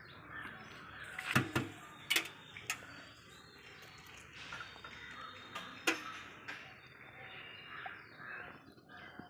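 Eggs being cracked against the rim of a cooking pot: a few sharp, separate taps over a quiet background.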